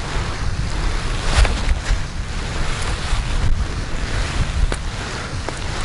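Wind buffeting the microphone: a steady low rumble with a hiss above it, broken by a few faint ticks.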